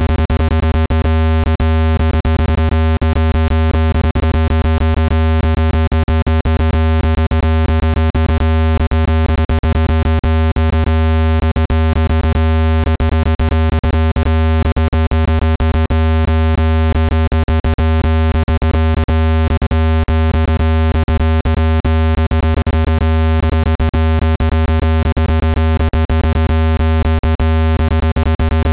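Synthesized speaker-cleaning tone, meant to vibrate dust out of a phone speaker's grille. It is a loud, steady, deep electronic buzz with many overtones and fast pulsing.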